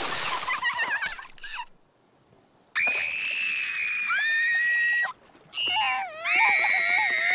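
A splash dies away in the first second or so. After a short hush, cartoon animal characters scream: one long, high-pitched scream held for about two seconds, then after a brief break another scream that wavers in pitch.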